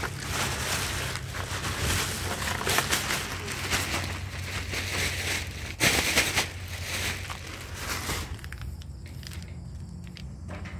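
Black plastic bag crinkling and rustling as it is handled, with a louder crackle about six seconds in; the rustling dies down after about eight seconds.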